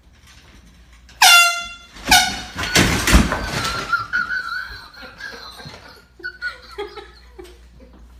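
Handheld air horn blasted twice, about a second apart. The first blast is long and very loud, the second short. A loud burst of noisy commotion follows, then a high wavering cry lasting about two seconds.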